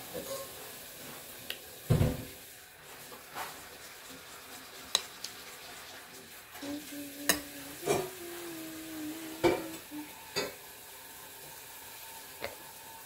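A spoon clinking and scraping in a glass bowl of watermelon hwachae as a child scoops and eats, with scattered sharp clinks and a louder knock about two seconds in. A short hummed note comes in the middle.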